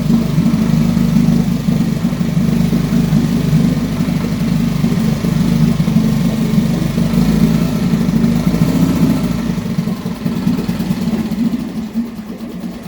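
Mariner 3.5 hp outboard motor running steadily on part choke, its first run in about four years after a carburettor clean. The deepest part of the note drops away and it runs a little quieter about ten seconds in.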